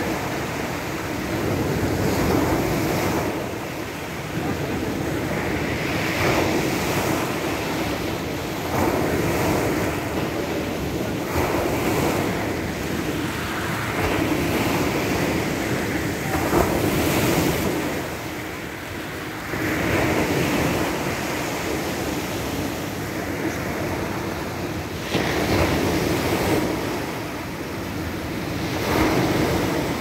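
Sea waves breaking on a pebble beach, surging in and washing back over the stones, swelling and fading every few seconds.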